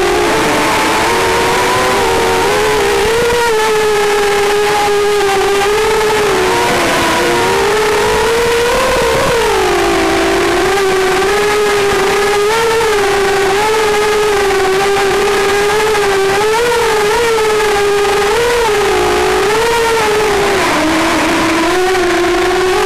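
FPV drone's motors and propellers whining loudly as it flies, the pitch wavering up and down with throttle changes and dropping lower about ten seconds in and again near the end.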